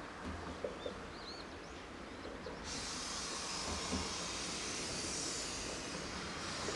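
Steam locomotive hissing steam: a steady high hiss starts suddenly a little over two and a half seconds in. A few small bird chirps come before it.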